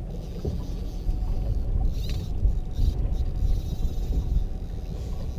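Low, uneven rumble of wind and water noise around a small open boat on the sea.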